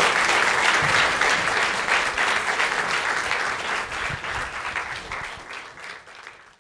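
Audience applauding after a talk: dense clapping that is loud at first and gradually dies away, fading out at the very end.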